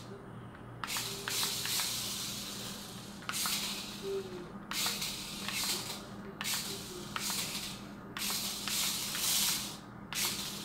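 Adventure Force Stunt Runner toy RC stunt car's small electric motor and gears whirring in about five bursts of one to two seconds as it is driven in spurts, its wheels scrubbing on a tile floor.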